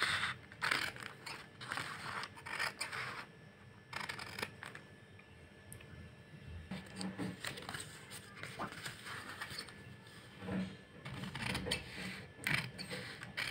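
Long-bladed tailor's scissors cutting through stiff paper in a series of irregular snips, with a quieter pause between about three and six seconds in.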